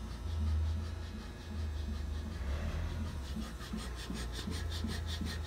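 Strippit Super AG CNC punch press running, a steady low machine hum with a regular pulse. From about three and a half seconds a rapid, even, high-pitched rasping ticking comes in, about five a second.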